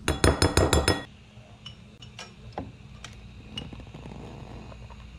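Metal measuring spoon clinking rapidly against a glass mixing bowl while stirring pectin powder: about half a dozen sharp ringing clinks in the first second, then a few faint clicks.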